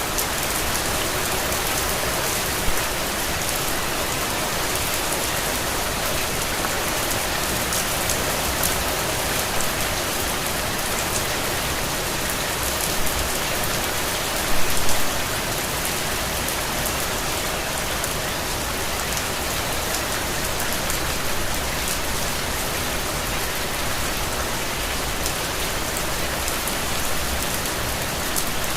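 Steady rain falling on a surface, a dense even hiss with fine drop patter, and a few brief louder splashes or knocks about halfway through.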